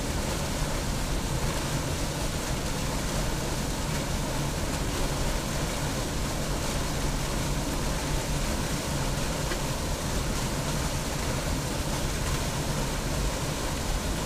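Small waterfall pouring over rocks into a river pool: a steady, unbroken rush of water.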